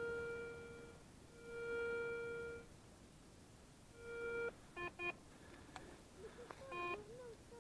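Garrett ACE 350 metal detector giving audio tones: a steady beep held about a second, twice, then a shorter one, followed by quick clusters of short lower beeps and a wavering tone near the end. The tones signal targets or interference in damp forest soil.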